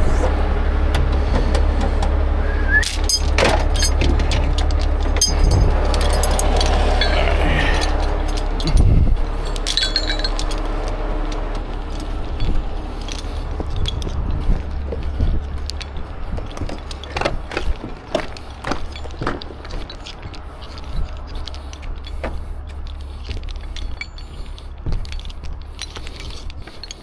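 Recovery chains clinking and rattling as they are handled at a rotator tow truck's side compartment, over the low steady hum of the idling truck. The hum fades after about fifteen seconds, and scattered clinks and knocks go on.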